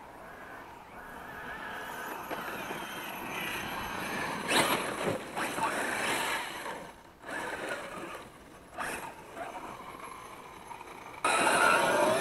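Brushless motor and gear drive of a Losi Mini WRC RC rally car whining up and down in pitch as it is driven hard on loose dirt, with tyre and gravel noise. It grows louder as the car nears, and the sound jumps suddenly louder about eleven seconds in, with a rising whine as it accelerates.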